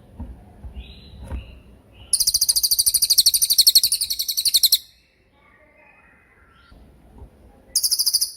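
Cililin songbird singing its 'tembakan' phrase: a loud, very high, rapid rattling trill lasting nearly three seconds, after softer chirps, then a second short burst of the same trill near the end.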